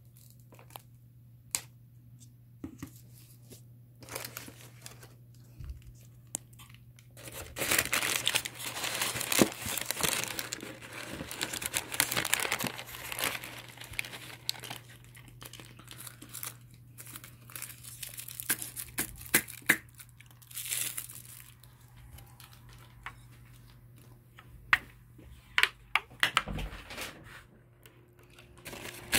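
Paper food bags, tissue-paper liners and paperboard chicken boxes crinkling and rustling as they are unwrapped and opened, in irregular bursts with sharp taps and clicks between. The rustling is heaviest from about a quarter of the way in to near the middle.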